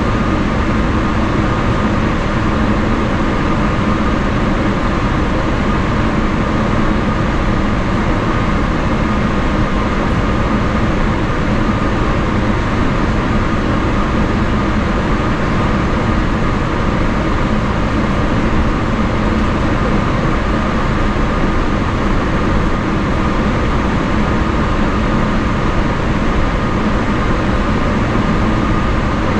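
Cabin noise of a Boeing 777-300ER taxiing with its GE90-115B engines at idle. A steady engine whine and hum sit over a low, even rumble.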